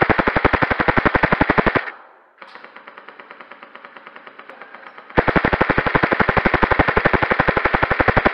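Airsoft gun firing BBs on full auto in long rapid bursts, a fast even rattle of shots. It stops about two seconds in. A much fainter run of rapid shots follows, and the loud burst resumes about five seconds in.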